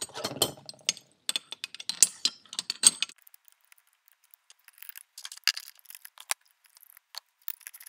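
Metal clinking and rattling of a steel V-band clamp being fitted around a turbocharger's cast compressor and bearing housings. There is a quick string of sharp clicks over the first three seconds, then a few scattered clinks.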